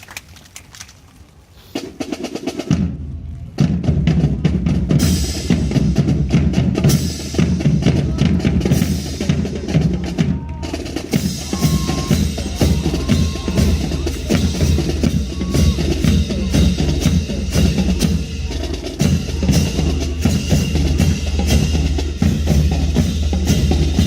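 Marching drum line playing snare and bass drums in fast, dense rolls and beats. It comes in about two seconds in and is at full volume a second or so later.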